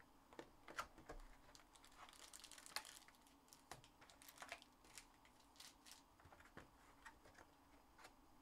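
Faint clicks, taps and rustling of a cardboard trading-card box being opened and its foil packs handled, with a short crinkle of packaging about two to three seconds in.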